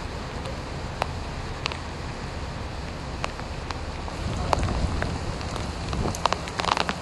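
Tropical storm wind and rain: a steady low rumble of wind with scattered sharp ticks of raindrops. It grows louder about four seconds in, and the ticks come thick and fast near the end.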